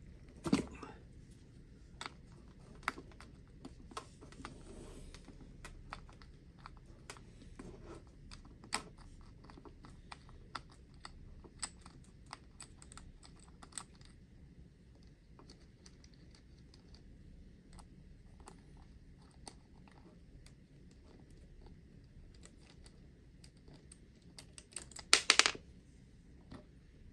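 Scattered small clicks and taps of an RC car's wheel and its hub hardware being handled and fitted by hand. There is a louder click just after the start and a brief loud rattle of clicks near the end.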